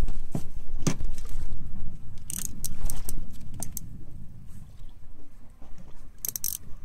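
Steady low rumble aboard a fishing boat, louder in the first few seconds and then easing. Scattered sharp clicks and clinks come in a cluster a few seconds in and again near the end.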